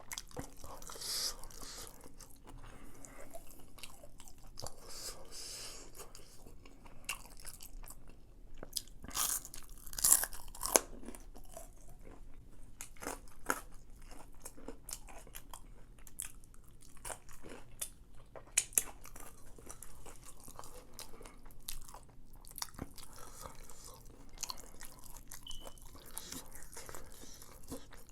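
A person chewing and crunching crunchy food close to the microphone, with irregular crunches all through; the loudest crunches come about ten seconds in and again a little before twenty seconds.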